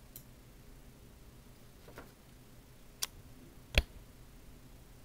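Quiet room hiss broken by three short, sharp clicks, about two, three and nearly four seconds in, the last the loudest.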